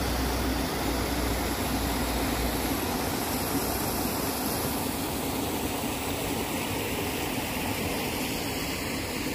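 Steady rush of flowing stream water, an even noise that holds level throughout.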